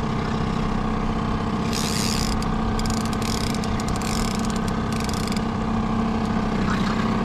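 A fishing reel being cranked, clicking rapidly for a few seconds starting about two seconds in. Under it runs the steady drone of the boat's outboard motor at trolling speed.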